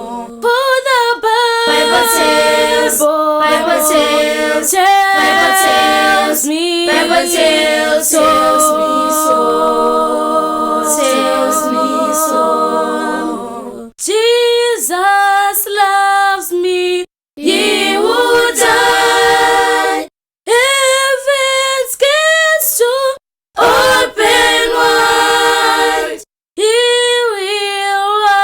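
A cappella vocal group singing in several-part harmony without instruments. Long held chords in the first half, then short sung phrases separated by brief silences.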